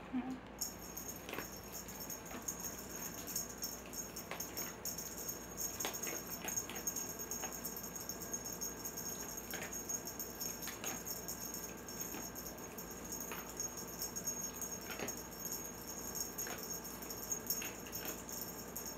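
Scattered, irregular light clicks and rattles from a cat playing with a wand toy around a play tunnel.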